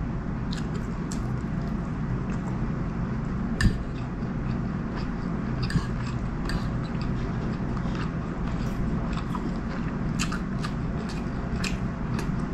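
Close-miked chewing of chicken curry and rice, with wet mouth clicks and smacks throughout and a sharp louder click about three and a half seconds in. A steady low hum runs underneath.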